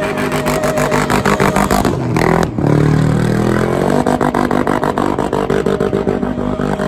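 Supercharged LS V8 in a Mini held at high revs during a tyre-smoking burnout. The revs drop sharply about two and a half seconds in, then climb back up.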